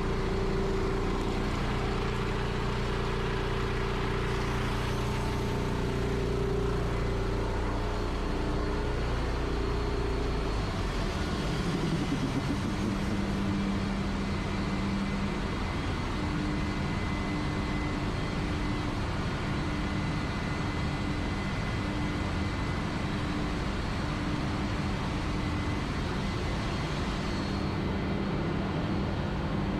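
Steady machinery noise of a ship's engine room: a dense, even noise with several low steady hums. About a third of the way through the low hums change, and after that one tone pulses on and off at an even rate.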